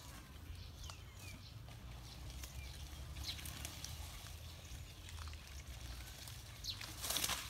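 Outdoor ambience: scattered short, falling bird chirps over a steady low rumble, with a brief loud rustle near the end.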